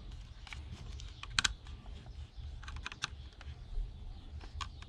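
Irregular light clicks and taps of a hard plastic alarm-clock casing and its small parts being handled and worked apart, with a sharper double click about a second and a half in.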